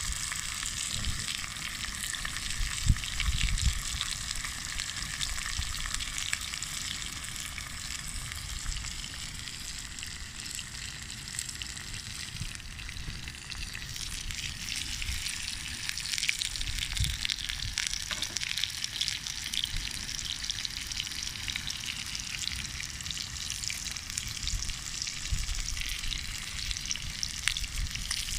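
Steak sizzling on a stainless fire grill over a campfire: a steady frying hiss with scattered small pops.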